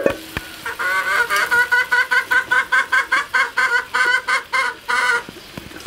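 A chicken clucking in a fast, even run of about five calls a second for around four seconds. Two sharp knocks come just before it starts.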